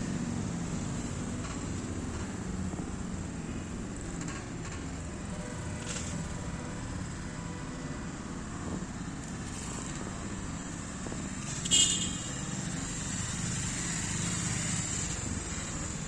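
Steady low rumble of road traffic, with a faint steady high whine over it and a brief sharp high chirp about twelve seconds in.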